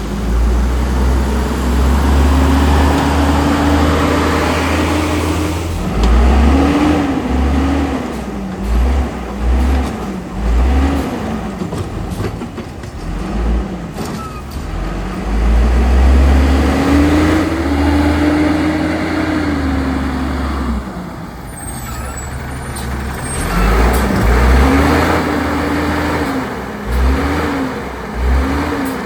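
Diesel engine of an Autocar WX refuse truck pulling hard, its pitch climbing in two long accelerations, with clusters of short revs rising and falling in between.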